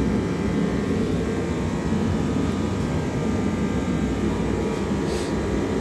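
A motor running steadily, a low drone with a faint layer of steady whining tones above it, during the inflation of a backhoe rear tire.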